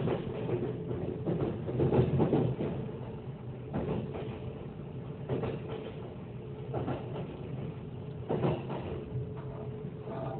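A Kintetsu Ise-Shima Liner limited express train running, heard from inside the carriage: a steady low rumble with a faint steady hum, and a muffled knock about every second and a half.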